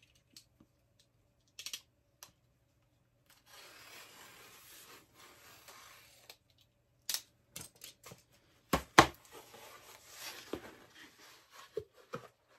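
A utility knife slicing open a cardboard mailer: a steady scraping stretch a few seconds in as the blade runs along the edge, then sharp knocks and rustling of cardboard being handled, the loudest a pair of knocks about nine seconds in.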